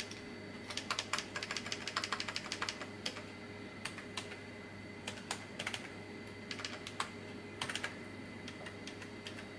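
Keys clacking on a heavy Olivetti M24 keyboard: a quick run of keystrokes about a second in, then scattered single presses as a word is deleted and retyped to clear spaces put in by a sticking spacebar. A steady hum runs underneath.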